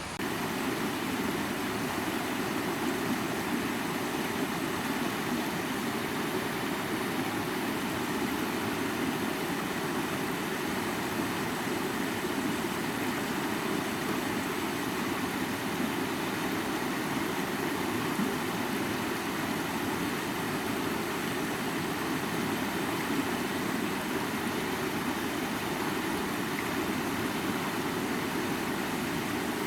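Steady rushing of river water, a continuous even noise that comes in suddenly and louder at the start and then holds level.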